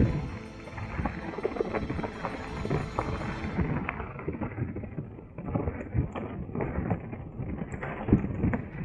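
Mountain bike rattling and knocking over a rough, rocky trail: frequent irregular clunks and clatters from the tyres, chain and suspension.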